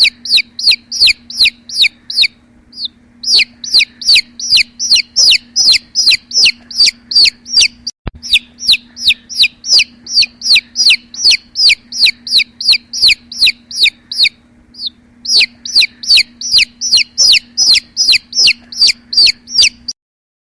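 A bird calling over and over in short, loud, high downward-sliding notes, about three a second, pausing briefly twice, with a faint steady hum behind. It stops abruptly near the end.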